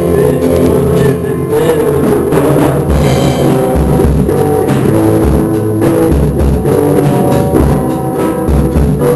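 A rock band playing at a rehearsal: drum kit with regular bass-drum hits under held guitar and bass notes.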